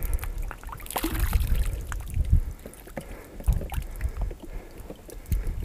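Liquid groundbait pouring from a plastic bottle into the water of an ice hole, dribbling and splashing in many small irregular drops, heaviest about a second in. A low wind rumble on the microphone runs underneath.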